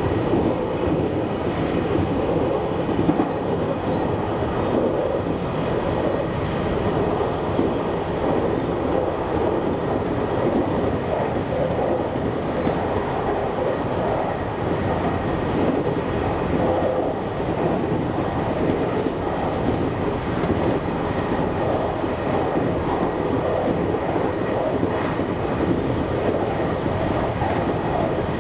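JR Kyushu 813 series electric train running along the line, heard from inside the front of the car: a steady rumble of wheels on rail that stays even throughout.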